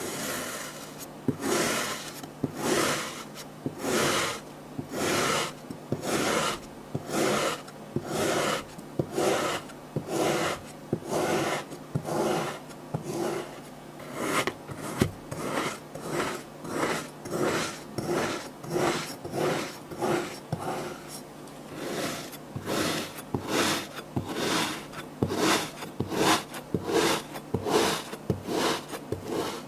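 Kinetic sand being worked in a long run of separate strokes, about one a second for most of the time and quickening to about two a second over the last several seconds.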